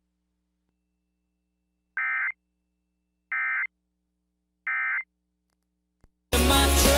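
Three short, identical EAS/SAME digital data bursts, about 1.3 seconds apart: the end-of-message tones that close a NOAA Weather Radio alert. Near the end a louder, harsher burst of data tone begins.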